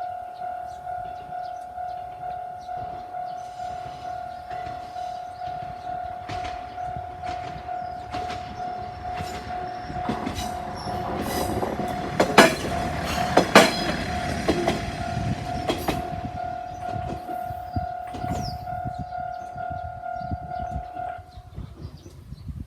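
A Japanese level-crossing alarm rings with an unusual, repeating electronic tone. About halfway through, a diesel railcar passes over the crossing, its wheels giving two loud clacks. The alarm stops near the end.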